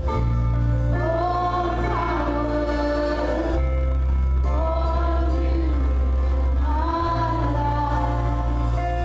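Live worship music: a group of voices singing a slow worship song over sustained low chords that change every few seconds.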